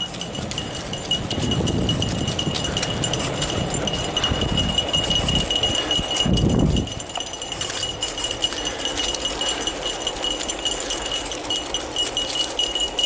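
Skateboard wheels rolling over pavement, a low rumble that eases about seven seconds in, with the dogs' collar tags jingling and clicking throughout and a steady high-pitched ring.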